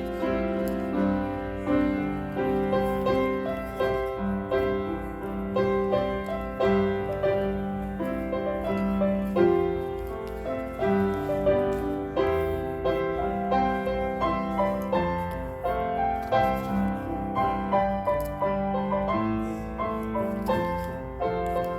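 Solo piano playing a flowing piece, with chords beneath a melody line.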